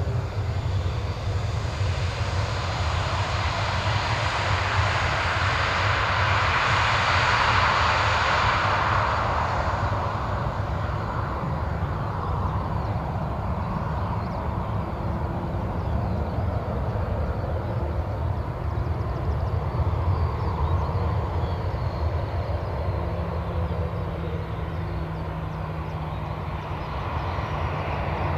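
Boeing 737 jet engines running as the airliner rolls along the runway, with a steady low rumble underneath. The roar is loudest about 6 to 10 seconds in, then slowly eases as the aircraft moves away.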